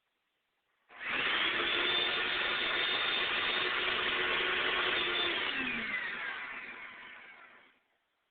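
Electric vacuum cleaner motor switched on, starting abruptly and running with a steady whine. After a few seconds it is switched off and spins down, its whine falling in pitch and fading away.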